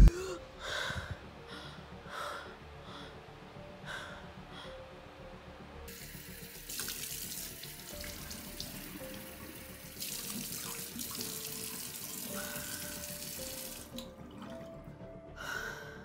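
Tap running into a bathroom sink, starting about six seconds in and shutting off about two seconds before the end, with a short break in the middle. Quiet background music with a few held notes plays under it.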